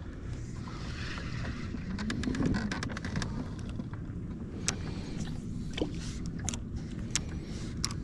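Steady low rumble of a boat on open water, with wind on the microphone. From about two seconds in comes a scatter of sharp clicks and taps, with a louder low bump in the middle.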